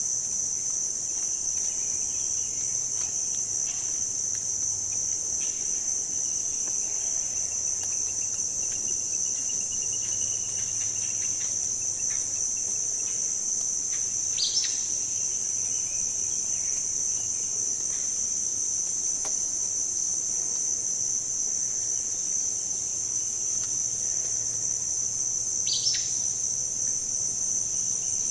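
Steady high-pitched insect chorus, like crickets trilling, with a few short bird calls that drop sharply in pitch, one a little before halfway and one near the end, and faint chirps in between.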